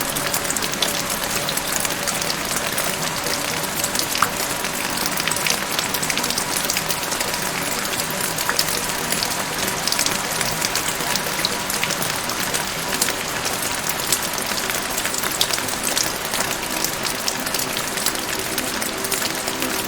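Steady rain: a dense, even hiss of falling water with many sharp individual drop hits scattered through it.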